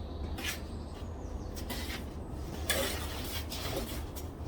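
Bricklayer's trowel scraping and working mortar, a few short scrapes, over a steady low rumble of site background.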